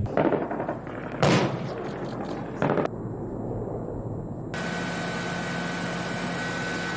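Live-fire weapons during a military exercise: three loud shots or blasts in the first three seconds, each followed by a rumbling tail. From about halfway in, a steady engine-like noise with a constant high whine takes over.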